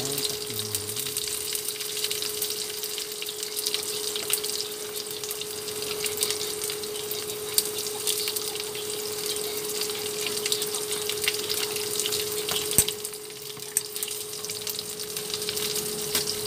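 Oil sizzling and crackling steadily in a nonstick frying pan as chopped aromatics fry, over a steady hum. A single sharp tap about 13 seconds in.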